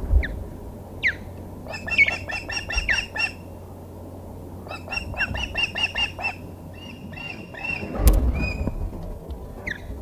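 Ospreys calling: two rapid series of short whistled chirps, each about a second and a half long, between single downslurred whistles. A sharp knock with a low rumble comes about eight seconds in.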